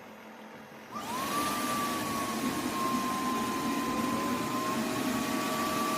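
The roborock F25 wet-dry vacuum's motor starts up in its base station during the self-cleaning cycle, after the roller has been soaked. About a second in it spins up with a quickly rising whine and settles into a steady run with a loud rushing hiss. A second, lower tone joins partway through.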